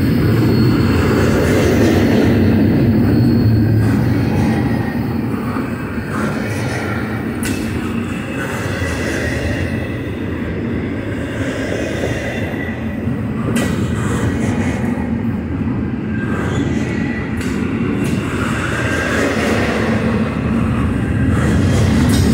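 Double-stack intermodal container cars of a freight train rolling past close by: a steady, loud rumble of steel wheels on rail, with a sharp click about a third of the way in and another a little past the middle.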